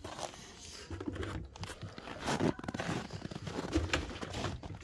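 Footsteps crunching through cold, dry snow, an irregular series of crunches with rustling in between.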